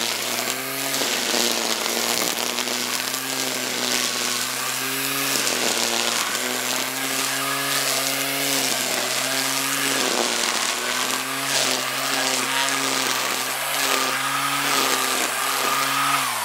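Black & Decker corded electric string trimmer running at full speed, its spinning line cutting grass and weeds. The motor's steady whine wavers slightly in pitch over a hiss of cutting.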